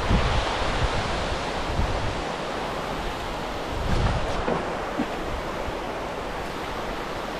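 Steady rushing of water pouring over a small river weir, with gusts of wind buffeting the microphone now and then, the strongest at the start and about four seconds in.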